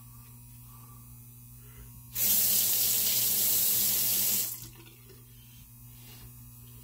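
Sink tap turned on and water running steadily for about two and a half seconds, starting about two seconds in, then shut off.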